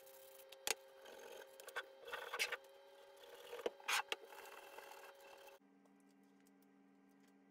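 Coarse sandpaper scraping around the inside of a painted steel bush-carrier bore, roughening it to take a polyurethane bush, in uneven strokes with a few sharp clicks and knocks of the metal parts. A little over halfway through it gives way to a low steady hum with faint ticks.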